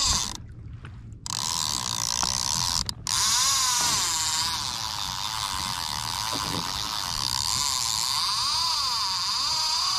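Fishing reel drag screaming as a hooked mahi-mahi pulls line off the spool: a steady, ratcheting whir that wavers up and down in pitch with the fish's run. It starts about a second in and cuts out briefly near three seconds.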